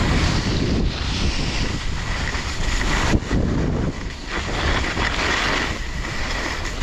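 Wind buffeting a helmet or body camera's microphone while snowblades hiss and scrape over packed snow during a fast run downhill, with a short knock about three seconds in.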